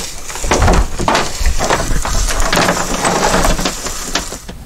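Irregular rustling and scraping of electrical wire being dragged over dry leaves and dirt and fed into a conduit, with crackly strokes and a few low thuds.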